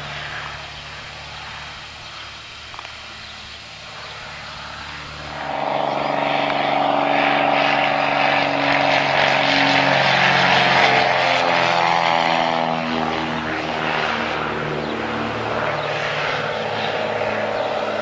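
Single-engine agricultural spray plane flying low overhead: the engine and propeller drone grows much louder about five seconds in, and its pitch falls as the plane passes by.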